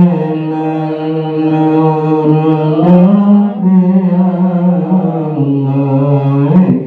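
A voice chanting a prayer in long held notes. The pitch steps up about three seconds in and drops lower about two seconds later.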